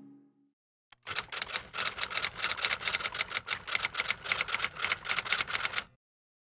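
Typewriter sound effect: rapid key clicks, about eight a second, starting about a second in and stopping sharply about five seconds later. The tail of music fades out at the very start.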